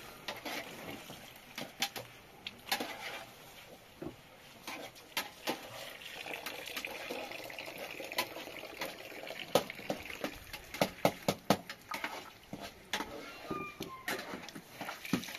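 Cooking clatter: a metal ladle scraping and knocking in a pot and a spoon against a tin over a wood fire, with many sharp clicks and knocks that come thickest in the second half. Water begins running from a tap near the end.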